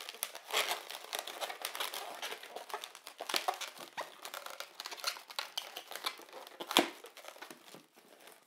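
Inflated 260 latex modelling balloons rubbing and squeaking against each other and the hands as bubbles are twisted together: a dense run of small crackles, with one sharper one about two-thirds of the way through.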